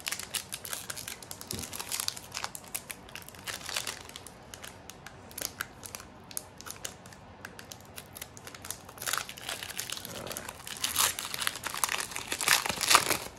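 Foil Pokémon booster pack wrapper crinkling and rustling as it is handled and opened, a run of short crackles and clicks with louder bursts about nine seconds in and again near the end.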